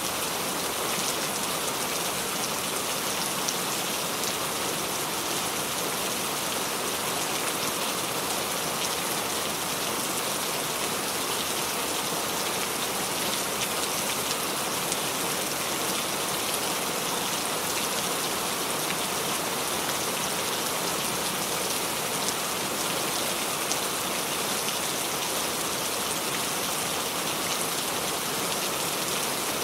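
Steady rain falling on a surface, a dense even hiss with fine scattered drop ticks.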